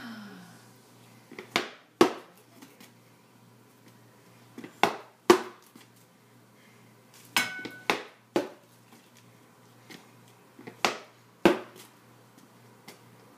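Rattan practice sword striking a wrapped wooden pell post: sharp knocks in quick pairs about half a second apart, repeated roughly every three seconds, with one group of three blows midway.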